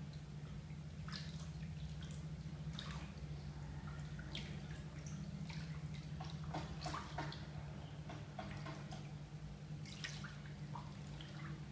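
Water dripping and lightly splashing in a filled bathtub as hands move and lift a soaked sweater, in irregular small drips scattered through, busiest in the middle. A steady low hum runs underneath.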